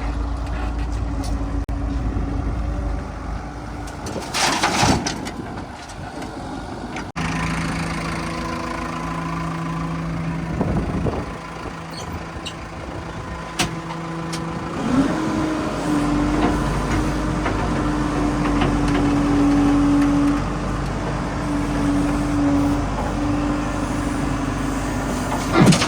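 Heavy vehicle engine running steadily; about halfway through its pitch rises and holds at a higher speed. A short burst of noise comes about four to five seconds in.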